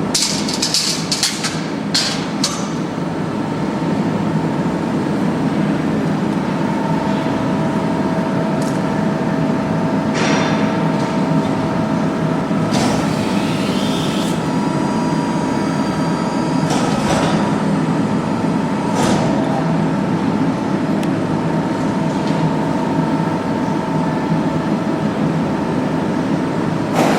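CNC press brake running through a bend of 3 mm sheet metal: a steady motor hum, with a steady whine coming in about a quarter of the way through, and several sharp clanks and knocks as the sheet and machine parts move.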